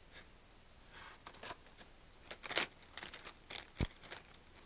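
Clear plastic parts bag crinkling and rustling as it is handled, in a run of short, quiet rustles, with one soft thump a little before the end.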